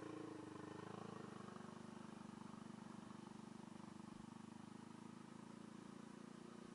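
Scooter engine running steadily at low speed.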